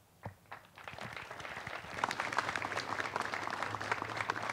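Audience applauding: a few scattered claps that swell from about a second in into steady, dense clapping by two seconds in.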